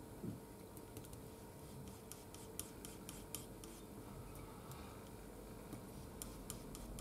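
Faint scraping and light ticking of a paintbrush working oil paint on a palette, mixing a flesh tone. The ticks come in a cluster from about a second in until past the middle, and a few more near the end, over a faint steady hum.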